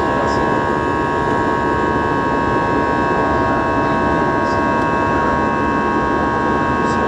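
Inside the cabin of a jet airliner climbing after takeoff: the turbofan engines make a steady rush of noise with a steady whine of several high tones over it.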